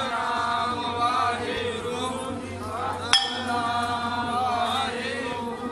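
Sikh devotional chanting, with a steady hum beneath and a single sharp metallic clink about three seconds in.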